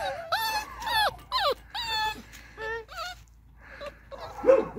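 Beagle puppies play-fighting, giving a rapid run of short, high-pitched whines and yips that drop in pitch, then a single lower, louder bark near the end.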